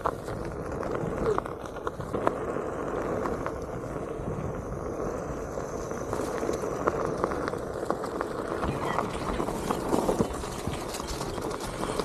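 Onewheel rolling along a dirt forest trail: a steady rumble of the tyre on the ground with many small crackles from leaves and twigs under it.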